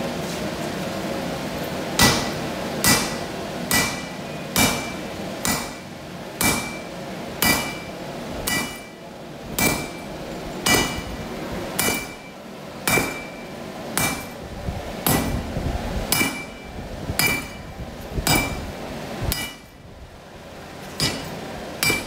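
Sledgehammer blows on red-hot steel on a farrier's anvil, forging an axe head, about one strike a second, each with a short metallic ring from the anvil. The strikes start about two seconds in and pause briefly near the end before two more blows.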